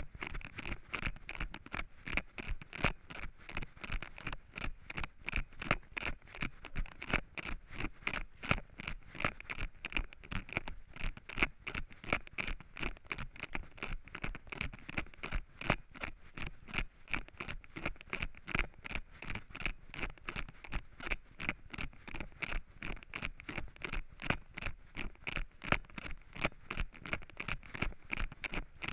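Running footsteps crunching through dry fallen leaves on a forest trail, an even rhythm of about three steps a second.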